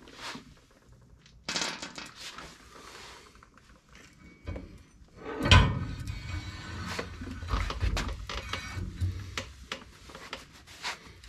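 Metal axle parts and tools of a truck's full-floating rear axle being handled, the axle shaft just pulled: clinks and a scraping rub, a heavy clunk about five and a half seconds in, then scattered knocks and clicks.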